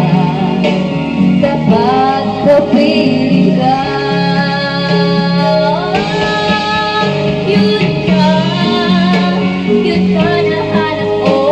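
A woman singing into a handheld microphone over backing music, her voice gliding between held notes.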